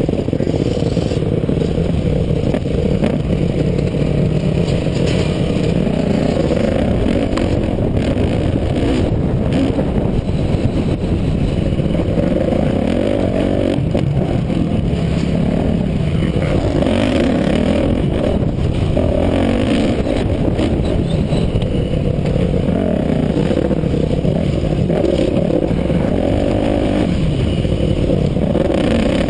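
Dirt bike engine heard close from on board, revving up and falling back again and again as the rider accelerates and shuts off around the track.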